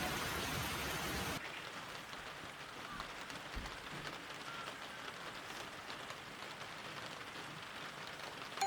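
Steady rain falling, an even hiss with faint scattered drops; background music fades out in the first second or so.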